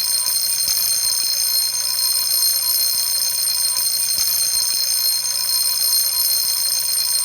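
Fire alarm bell made by 仙暉工業 ringing continuously and loudly, without a break, in a bright high ring.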